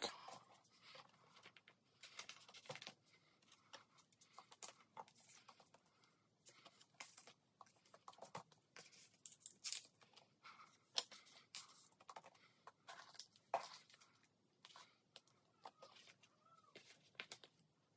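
Faint rustling and light clicking of clear plastic binder pocket sleeves as photocards are slid into them, a scatter of short soft handling sounds.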